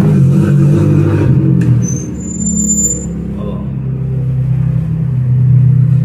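A steady low motor hum, like an engine running, with a brief high whistling tone about two seconds in.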